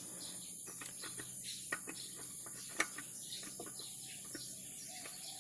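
Faint steady cricket chirping, with a few light clicks and taps of hand work, the sharpest about two and three seconds in.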